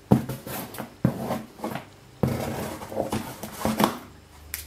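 Handling of a cardboard shipping box: about five sharp knocks and scrapes, with rustling between them, as hands work at its tape and string.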